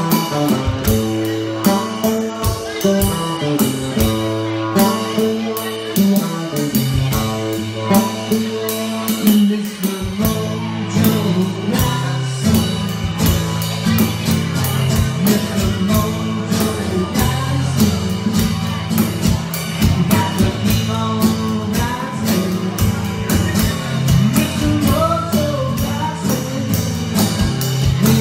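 Live rock band playing: a drum kit keeps a steady driving beat with cymbal hits under a moving bass line and melodic guitar or keyboard parts. The bass line drops out briefly around a third of the way in, then comes back.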